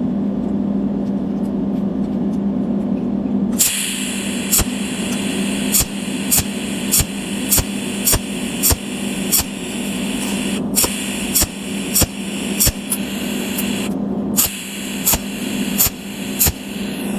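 Cold welding machine (pulse spot welder) laying weld spots one after another: a sharp crack about every 0.6 s over a steady hiss, which starts about three and a half seconds in and breaks off briefly twice. A steady machine hum runs underneath throughout.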